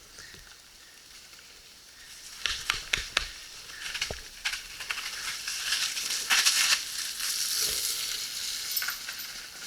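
Crackling, hissing noise of bike tyres and gear working through a wet, muddy trail in the rain, with a few sharp knocks between about two and four seconds in.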